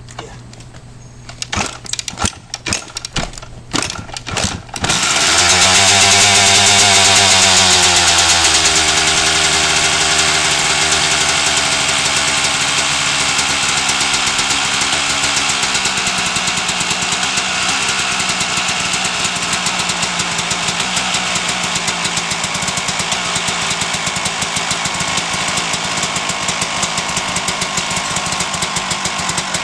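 1997 Suzuki RM250 two-stroke engine being started with the choke on: a few sharp knocks as it is turned over, then it catches about five seconds in. It runs loudest just after starting, its pitch sliding down as it settles into a steady, fast-ticking run.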